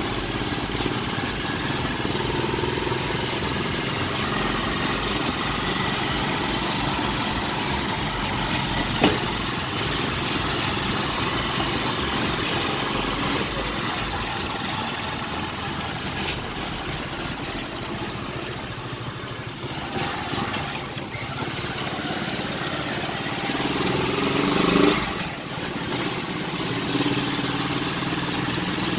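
Honda motorcycle engine of a tricycle running steadily while riding, heard from the sidecar with road and wind noise. There is a sharp click about nine seconds in, and the engine swells louder briefly near the end.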